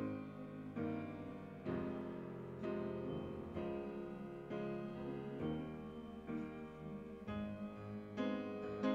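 Slow piano music: soft chords struck about once a second, each left to ring out.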